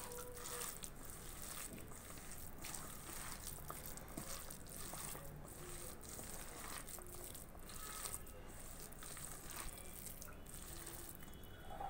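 Hands kneading a damp mixture of chopped cabbage and gram flour in a steel bowl: faint, irregular squelching and rustling.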